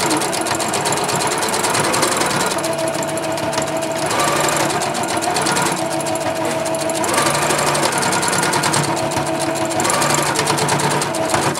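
Electric sewing machine running fast and continuously, its needle stitching rapidly back and forth over layered fabric scraps, with the motor's tone shifting a few times as the speed changes.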